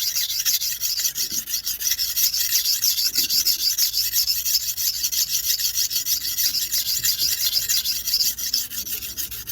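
A blade being rubbed back and forth on a sharpening stone in quick, even strokes, several a second, a steady rasp. The blade is very blunt.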